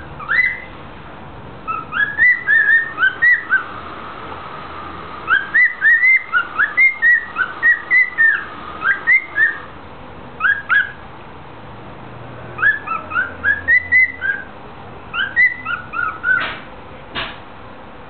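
Male cockatiel whistling its song: phrases of short, quickly rising notes with pauses between them, ending with two short sharp sounds near the end.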